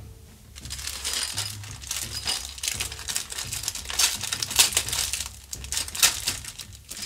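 Thin plastic bag crinkling and rustling in irregular bursts as hands open it and slide a plastic miniature sprue out.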